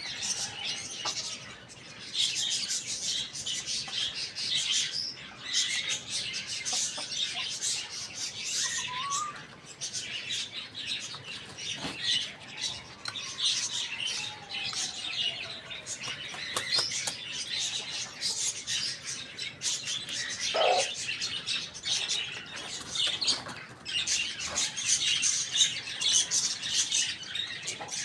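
Many small birds chirping continuously in dense, overlapping high twitters, with a few brief lower calls, one of them about twenty seconds in.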